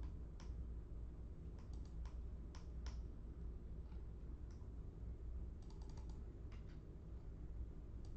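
Computer keyboard keys clicking in irregular ones and twos, with a quick run of keystrokes about six seconds in, over a steady low hum.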